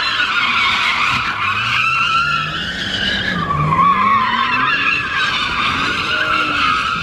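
Car sliding round in tight circles, its tyres squealing without a break while the engine revs rise and fall.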